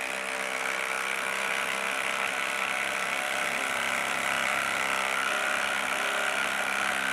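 Ryobi P238 brushless impact driver hammering steadily under load as it drives a 4-inch lag screw into a wooden log with no pilot hole.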